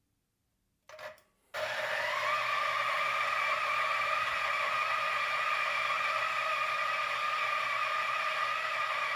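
Turin DF64V variable-speed espresso grinder, its 64 mm flat burrs turning at 1200 RPM, grinding 18 grams of coffee beans with a steady whir. A brief sound comes about a second in, then the grinder starts about half a second later, rising a little in pitch as it comes up to speed and then holding steady.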